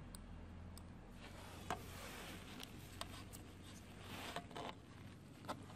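Faint rubbing and scraping with a few light clicks from hands handling the parts of an LCD TV during reassembly, over a steady faint low hum.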